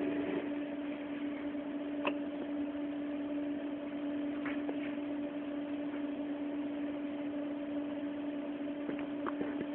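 A steady electrical-sounding hum over a constant hiss, with one short click about two seconds in.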